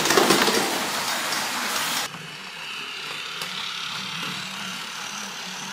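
Battery-powered Plarail toy trains running on plastic track: a loud rattle of wheels and gears as one runs down a plastic slope, then, after a sudden cut about two seconds in, the quieter steady whir of another toy train's motor as it passes.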